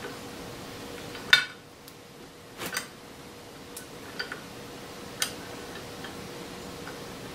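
A few sharp metal clicks and clinks, about five spread over several seconds, as a steel lathe part is turned over and handled in a sheet-metal tray while being cleaned with steel wool. A faint steady hum runs underneath.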